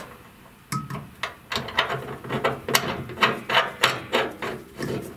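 Brass water manifold being screwed by hand onto a brass American union fitting: a run of short metallic clicks and scrapes, about three a second, as the threads are turned.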